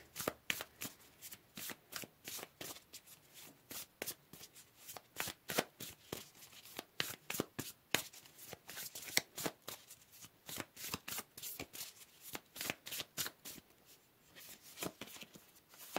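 A deck of oracle cards being shuffled by hand: a quick, uneven run of soft card clicks and slaps that thins out near the end.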